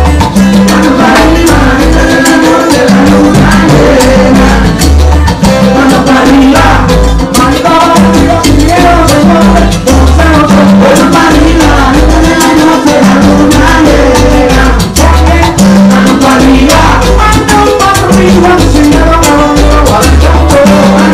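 Live son montuno band playing an up-tempo number: congas, drum kit, acoustic guitar and maracas over a repeating bass line.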